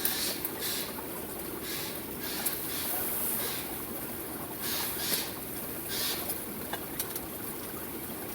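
A pot of miso-based soup simmering on a camp stove: a soft, uneven hiss that swells and fades, with a few light clicks.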